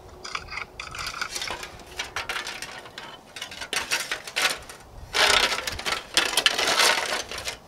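Aluminium foil windscreen crinkling and rattling as it is handled and set up around a camp stove, with scattered light clicks and a louder crinkling stretch from about five seconds in.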